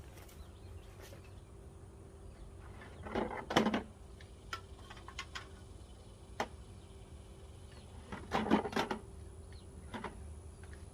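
Two short bursts of a cordless drill driving screws into wood, about three seconds and eight seconds in, with a few single knocks between them.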